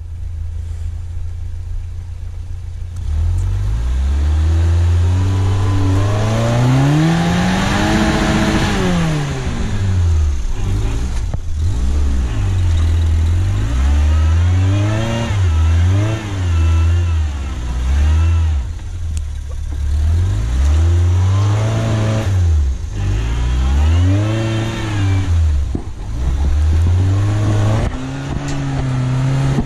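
Suzuki SJ410 off-roader's engine revving up and down again and again under load as it claws through a deep snow rut. It is lower and steadier for the first few seconds, then rises to a long high rev and keeps surging and dropping every second or two.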